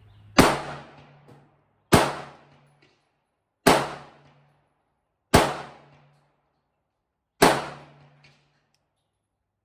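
Five shots from a Ruger Wrangler .22 LR single-action revolver, fired slowly, one every one and a half to two seconds, each shot trailing off briefly.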